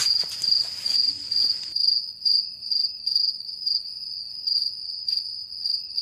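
Crickets chirping: a steady high trill that pulses about two to three times a second.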